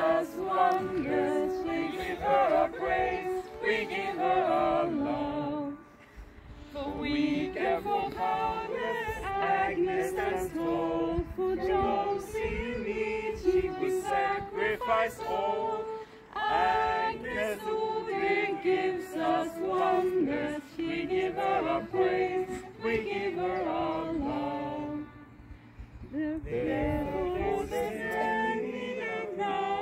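A group of people singing a song together a cappella, with short pauses between phrases about six seconds in and again near twenty-five seconds.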